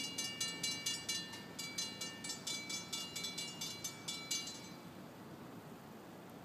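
Railroad crossing warning bell ringing in rapid even strikes, about three or four a second, then stopping about four and a half seconds in. A faint low rumble stays underneath.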